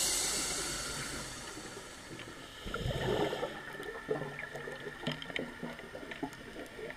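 Underwater sound through a diver's camera housing: a hiss fades out over the first two seconds, then about three seconds in comes a gurgling rush of exhaled scuba regulator bubbles, followed by faint scattered clicks and bubbling.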